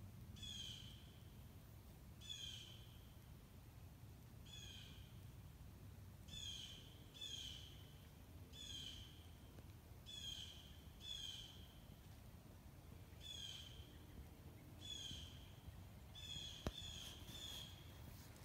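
Faint, harsh animal calls repeated about thirteen times at uneven gaps of one to two seconds, with a single sharp click near the end.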